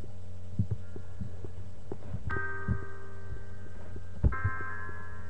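Intro of a backing track playing: soft low thumps of a beat, with sustained keyboard chords coming in about two seconds in and again near the end, over a steady low hum.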